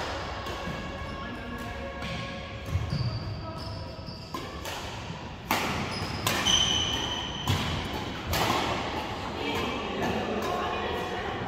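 Badminton rally: several sharp racket-on-shuttlecock hits about a second or two apart, with short shoe squeaks on the wooden court and voices in the background.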